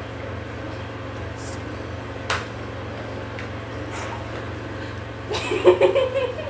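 Kitchen handling sounds over a steady low hum: one sharp knock about two seconds in, then a second-long burst of clattering near the end as a boiled egg is picked up at the counter.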